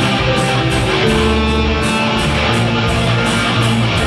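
Instrumental passage of a Mandarin pop song between sung lines: guitar strumming over bass and a steady beat.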